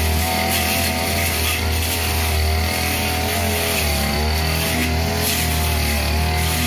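Two-stroke engine of a '328' backpack brush cutter running at high speed, its short blade cutting through tall grass. The engine pitch wavers and dips a few times as the blade bites into the growth.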